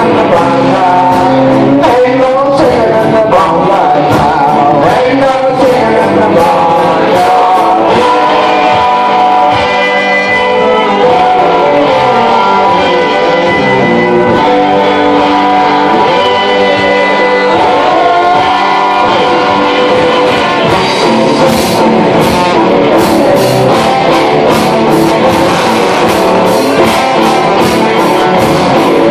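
Live band performing a rock song: a voice singing over acoustic guitar and drums. About two-thirds of the way in, the drums and cymbals get busier and the sound fills out.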